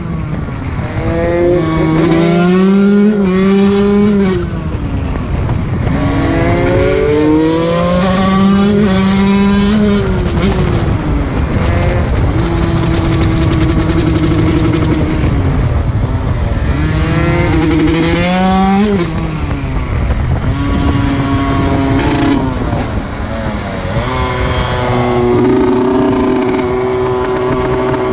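125 cc two-stroke dirt bike engine being ridden hard, its revs climbing and then dropping sharply several times as the rider accelerates and backs off the throttle, with a few stretches held at steady revs.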